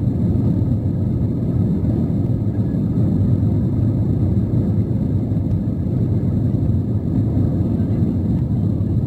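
Jet airliner's takeoff roll heard inside the cabin: the engines at takeoff power and the wheels on the runway make a steady low rumble.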